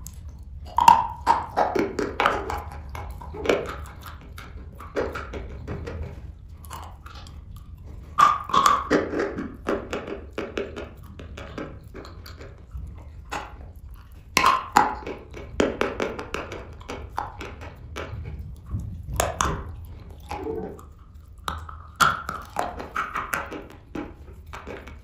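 Bites and chewing of dry, crumbly chalk clay chunks spread with cream: about five bouts of sharp crunching and crackling snaps, each lasting a couple of seconds, with quieter crumbling chews between.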